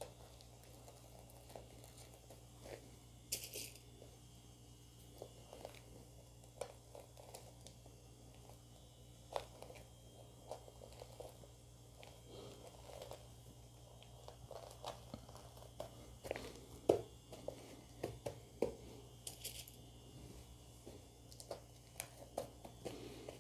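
Faint rustling and crinkling of net and lace skirt fabric being smoothed and handled, with scattered small clicks over a steady low hum.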